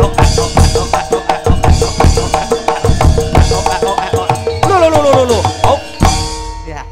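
Javanese gamelan-style music driven by fast drum strokes over a held note. A falling sliding tone comes near the end, then one strong final stroke about six seconds in, after which the music dies away.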